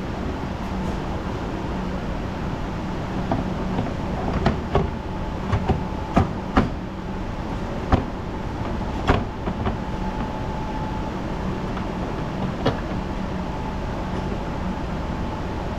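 Steady workshop hum with about a dozen short clicks and knocks scattered through it, as the new engine air filter and its housing are handled and fitted.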